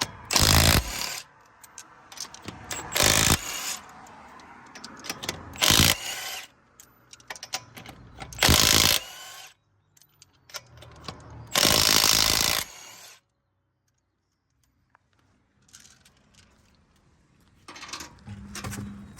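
A power tool run in short bursts, about five times, with metal clatter and ratcheting between, as bolts are taken out of a truck's front suspension.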